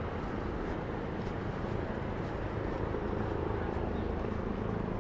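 Steady city street noise of passing traffic, engines running, getting a little louder near the end, with faint voices of people around.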